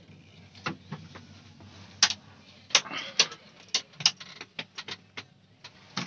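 Irregular sharp mechanical clicks and knocks, about a dozen, loudest and most frequent between two and four seconds in, over a faint steady low hum.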